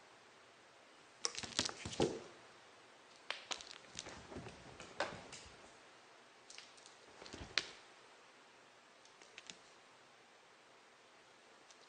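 A cat moving about on a shag rug and wooden floor: short clusters of rustling and light clicks, a few seconds apart, the last one faint.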